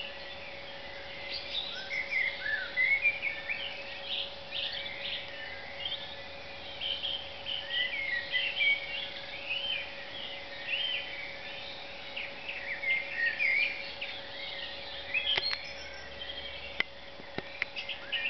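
Dawn chorus: many birds singing at once, their short overlapping phrases and trills running on without a break. A steady faint hum lies underneath, and a few sharp clicks come near the end.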